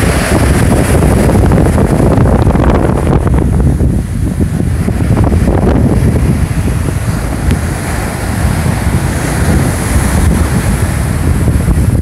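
Strong surf breaking and washing up a sandy beach, a continuous loud rush of water, with heavy wind buffeting the microphone as a low rumble.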